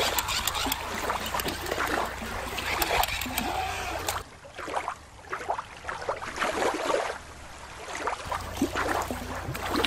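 Water splashing and trickling at the shoreline, with scattered short splashes and knocks; it drops to a quieter stretch of lapping water partway through.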